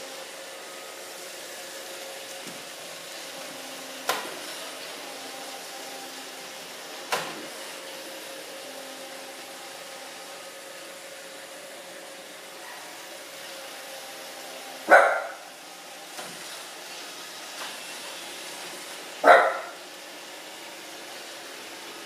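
iRobot Roomba 650 robot vacuum running steadily, with two sharp knocks early on. A dog barks twice, once about two thirds of the way in and again about four seconds later.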